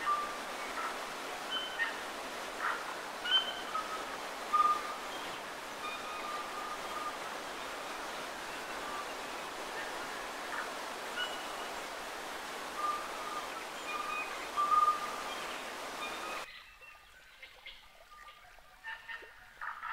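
Steady rush of a waterfall with short bird calls scattered over it. Near the end the rushing cuts off suddenly, leaving the bird calls and a few faint ticks.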